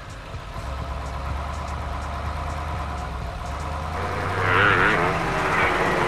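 Sound-effect truck engine running with a steady low rumble. About four seconds in, a louder, wavering higher engine note joins it.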